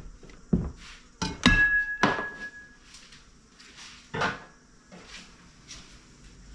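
Scattered knocks and clatter of tools and parts being handled and set down, with one sharper knock about one and a half seconds in that rings briefly like metal, and a few quieter knocks after it.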